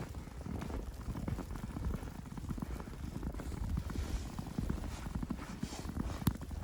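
Footsteps crunching in fresh powdery snow at a walking pace, over a steady low rumble, with one sharp click near the end.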